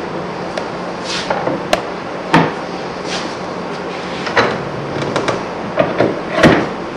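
A steel hand scraper worked on a wooden board: sharp wooden knocks and clicks, and several short scraping strokes across the wood, over a steady low hum.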